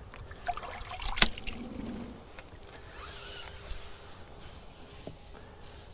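Faint handling sounds of a brush being lifted from a bucket of rinseless wash solution and worked on a car wheel: water dripping, a sharp knock about a second in, then a soft scrubbing hiss.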